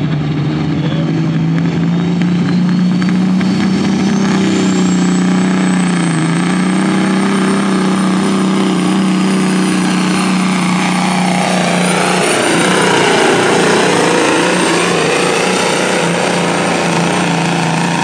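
Pro stock semi's turbocharged diesel engine at full throttle pulling a weight-transfer sled down the track, with a high turbo whistle that climbs over the first few seconds and then holds steady. The sound shifts about two-thirds of the way through as the truck passes close by.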